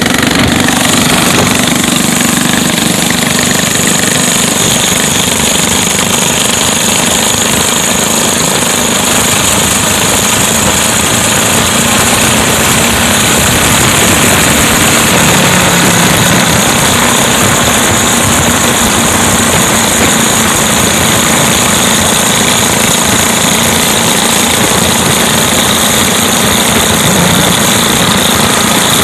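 Small single-cylinder mini bike engine running steadily at riding speed, a fast continuous putter.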